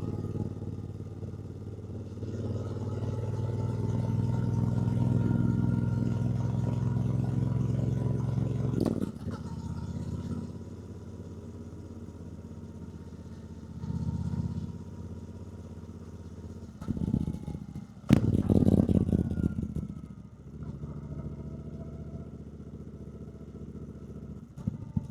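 2024 Triumph Bonneville T120's 1200 cc parallel-twin engine under way, getting louder as it pulls for several seconds, then dropping off sharply and running at lower revs. A short swell follows, and near the end there is a sharp click and a couple of seconds of loud, rough noise.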